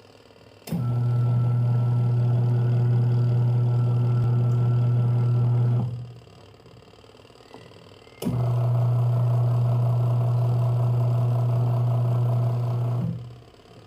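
Washing machine motor running in two steady humming bursts of about five seconds each, stopping for about two seconds in between, each ending with a quick fade. The drum is turned in bursts during the wash cycle.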